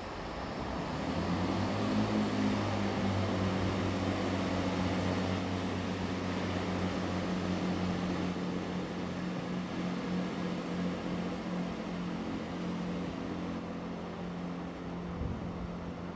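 Chiltern Railways Class 165 Turbo diesel multiple unit pulling away from a stop. Its diesel engines open up about a second in and then run steadily under power as the train gathers speed.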